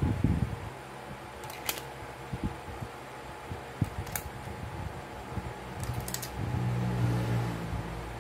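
Steady hum of a fan, with a few sharp clicks and dull knocks as rubber bands are stretched and snapped around a phone. The bands clamp the newly glued LCD in place.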